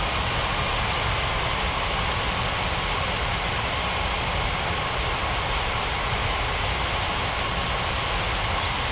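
Airbus A330 jet engines running steadily: an even rush and rumble with a faint high whine, no change in level.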